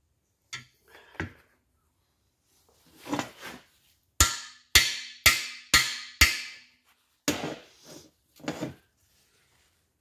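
Hammer blows on the end of a cam bearing driver mandrel, driving a cam bearing into a Pontiac 400's cast-iron block. There are a few lighter taps, then five sharp blows about two a second, each leaving a short ring, then a few lighter strikes near the end.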